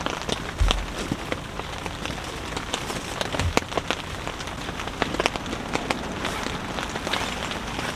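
Heavy rain falling steadily on the fabric of an Idoogen Snail Box one-touch tent, heard from inside, with many sharp individual drop hits. Two dull thumps, a little after the start and near the middle, come from movement on the padded tent floor.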